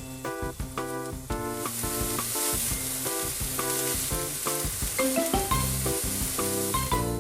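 Food sizzling in a frying pan, the hiss starting about a second and a half in, over background music.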